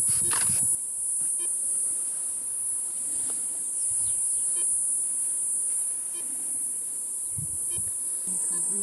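Steady, high-pitched chorus of insects, with a few faint ticks over it.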